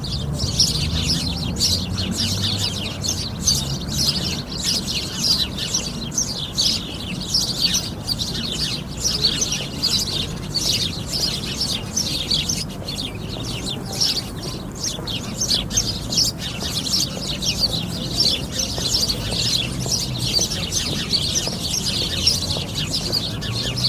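A flock of sparrows chirping continuously, many short calls overlapping, over a low rumble.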